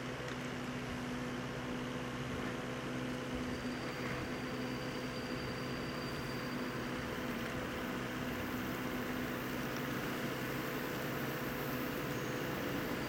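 Steady electric hum with a few held tones over an even hiss, from a Rhätische Bahn electric train standing in the station with its equipment running.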